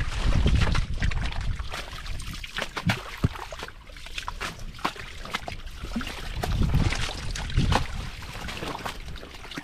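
Water sloshing and trickling, with many small splashes and drips as it is stirred by hand fishing. Low rumbles come at the start and again about seven seconds in.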